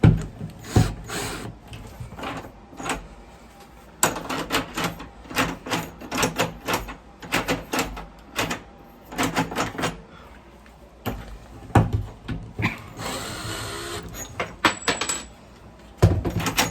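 Door knob hardware being handled and fitted: irregular clusters of small metallic clicks and rattles, with a brief scraping rustle a little past the middle and a louder knock near the end.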